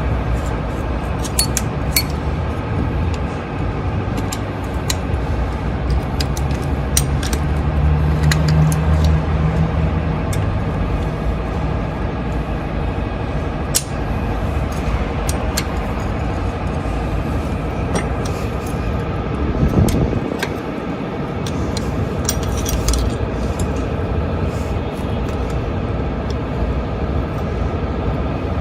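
Steady rumble of a motor vehicle engine, with scattered sharp metallic clinks of tools and parts.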